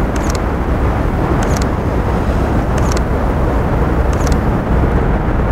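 Steady low outdoor rumble, with a short hissing whoosh about every second and a half from burning steel wool being whirled round on a line, throwing sparks.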